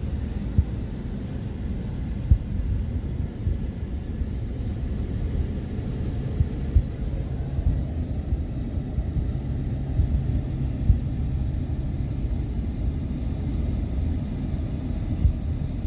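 A low, steady rumble with brief irregular thumps.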